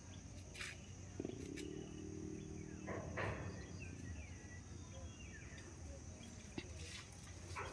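Outdoor nature ambience: insects giving a steady high buzz, with faint bird chirps. About a second in, a low, drawn-out animal call lasts a second and a half.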